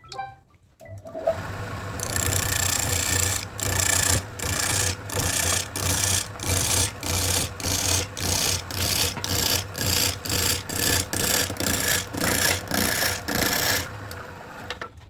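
A hand tool rasping or scraping in steady back-and-forth strokes, about two a second, over a low steady hum.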